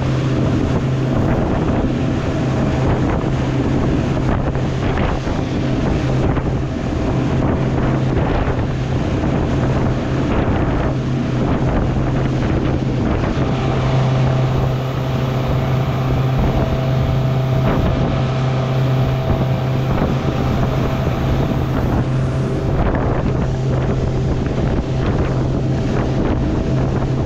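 Motorboat engine running at a steady speed, with wind buffeting the microphone and water spray hissing and splashing past the boat.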